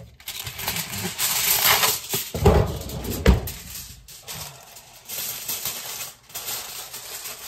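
Aluminum foil being pulled from its box, torn off and crumpled by hand: a continuous crinkling rustle, with two heavy knocks near the middle.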